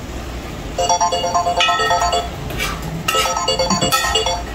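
A mobile phone ringing with a melodic ringtone: a short tune of bright notes that plays twice, with a brief pause before each.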